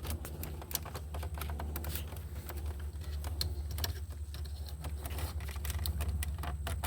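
Plastic interior trim panel and its retaining clips clicking and rattling as the panel is worked loose by hand, over a steady low hum.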